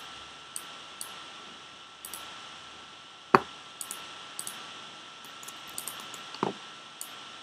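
Computer mouse and keyboard clicks: a scattered string of light clicks, with two louder knocks about three and a half and six and a half seconds in, over a faint steady tone.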